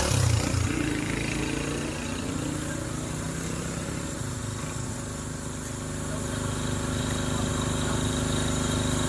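An engine running steadily at one pitch, with a louder low rumble in the first second.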